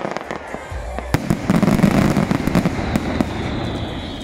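Aerial fireworks bursting: a run of sharp bangs and crackles, with a louder burst about a second in followed by dense crackling.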